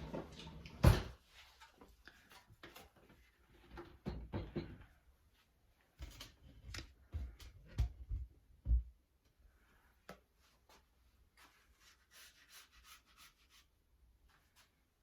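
Kitchen work sounds: a series of knocks and thumps of things set down and handled on a counter, the loudest about a second in, then soft rustling and scraping from about ten seconds on.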